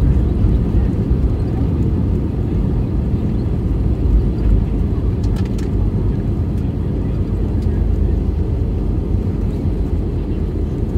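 Cabin noise of an Airbus A320neo rolling down the runway after landing: a loud, steady low rumble of engines and wheels.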